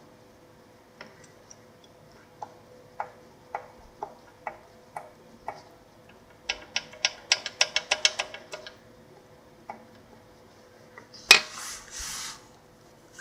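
Sharp metallic knocks from an SF Moto X8 engine's connecting rod with a spun big-end bearing shell, with no engine running: single knocks about twice a second, then a faster run of about five a second, then one louder clunk followed by about a second of scraping.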